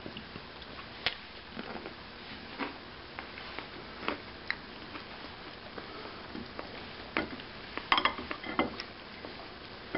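A few light clicks and taps over quiet room hiss, with a cluster of clinks about eight seconds in as a spoon and chopsticks knock against a ceramic soup bowl.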